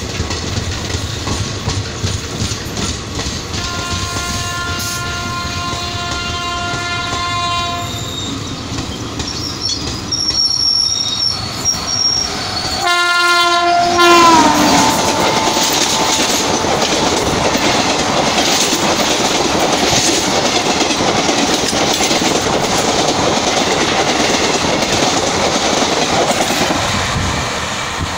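An Indian Railways WAP-7 electric locomotive hauling an express runs through the station at maximum permissible speed. A long train-horn blast sounds, then a few short high toots, then a loud horn blast whose pitch drops as the locomotive passes. The steady rush and wheel clatter of the coaches follows, fading near the end.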